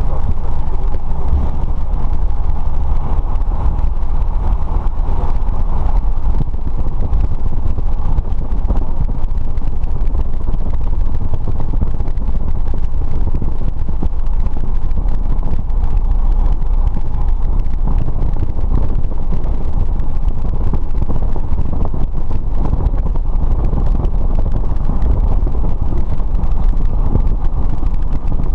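Light aircraft's engine and propeller running steadily, a loud, even drone with wind noise.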